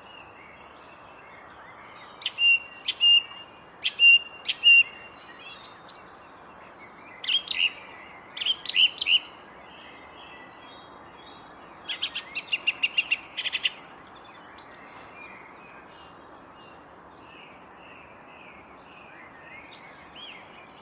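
A songbird singing phrases of sharp, high chirping notes with pauses between them, including a quick run of about eight repeated notes in the middle, then softer calls, over a faint steady background hiss.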